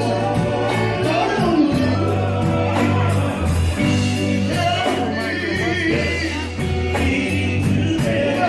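Gospel music: a song with singing over a band, with a held bass line and a steady beat.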